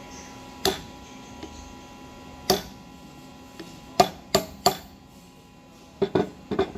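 Hammer striking a punch to drive a broken drill bit out of a steel sprocket: sharp metallic taps, spaced a second or more apart at first, then a quicker run of lighter taps near the end, over a faint steady hum.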